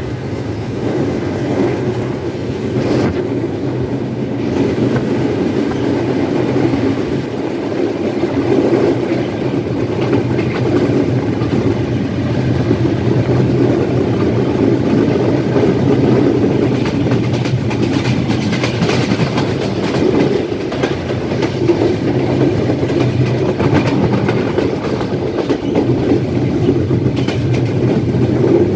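Nilsagar Express passenger train running along the track, heard from aboard at an open window: a steady rumble of wheels on rails with a steady low hum and many sharp clicks from the rail joints.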